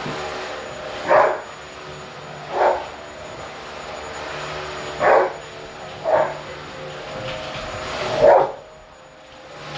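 A dog barks five times at uneven gaps over the steady hum of a Whirlpool WFO3P33DLXUK dishwasher running its main wash.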